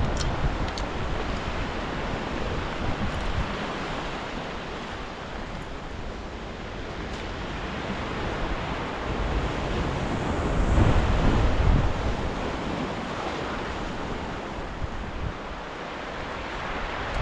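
Strong wind buffeting the microphone over the steady wash of sea waves breaking on the shore, with a stronger gust about eleven seconds in.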